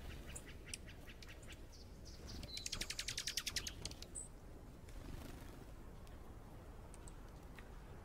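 Small songbirds chirping, with scattered short high chips and, a little before halfway, one fast trill of rapid repeated notes lasting about a second, the loudest call.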